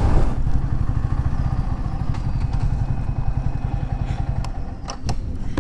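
Motorcycle engine running with a rapid, even low pulsing that quietens about four and a half seconds in. A few sharp clicks follow near the end.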